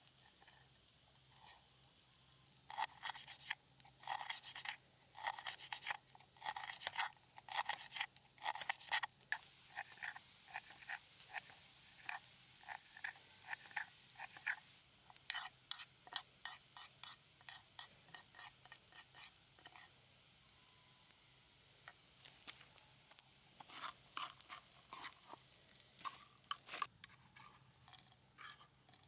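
Cooking noises: a run of quick scrapes, taps and crunches of a utensil working food in a frying pan, with a few seconds of sizzling hiss in the middle.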